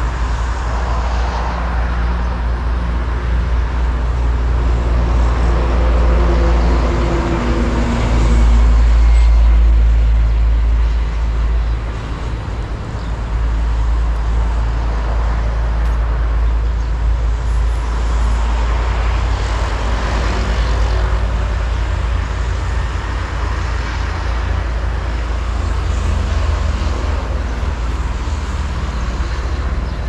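A steady low rumble of road traffic, with a motor vehicle passing that is loudest about eight to ten seconds in.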